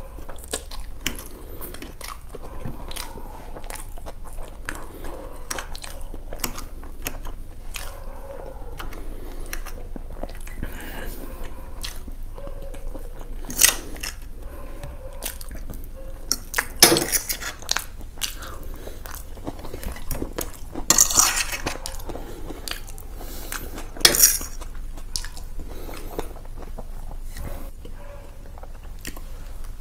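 A person eating close to the microphone: steady chewing and biting with small clicks of cutlery on dishes, and several louder, sharper noises from about halfway through.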